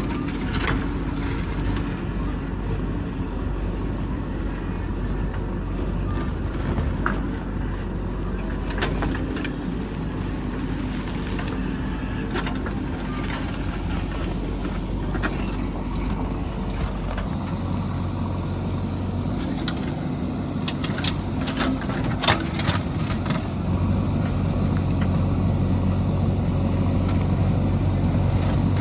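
JCB backhoe loader's diesel engine running under changing load. Its note deepens and grows louder about two-thirds of the way through, with a few sharp knocks.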